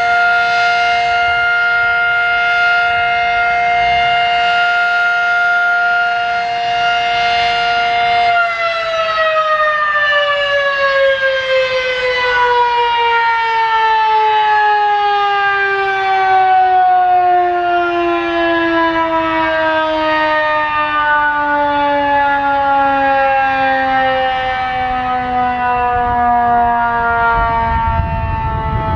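Fedelcode Mach 5 outdoor warning siren holding a loud, steady two-tone chord at the end of its two-minute alert test. About eight seconds in it shuts off and winds down, the chord sliding slowly lower in pitch.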